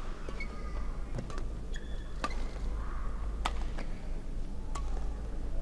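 Badminton rackets striking a shuttlecock in a rally, a sharp crack about every second, with short squeaks of court shoes on the mat between the hits.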